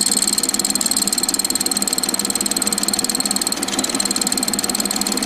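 Small lathe running steadily with a high whine, spinning a clock arbor while a fine file smooths the pivot against a filing rest to remove the taper.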